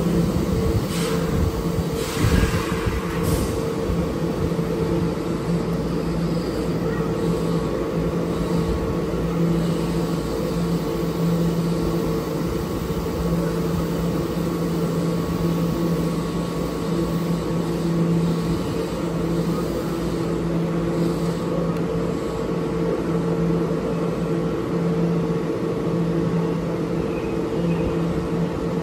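A Keihan 2600-series electric train standing at the platform, its on-board equipment giving off a steady hum with two constant pitches. In the first few seconds, as it comes to rest, there are a few short sharp hisses and knocks.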